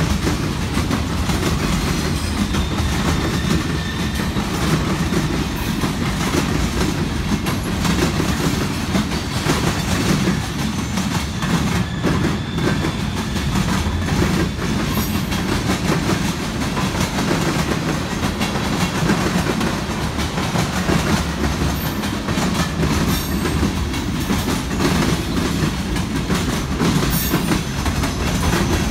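Freight train of tank cars and boxcars rolling past close by: a steady rumble of steel wheels on rail, with a constant run of clicks and clacks over the rail joints.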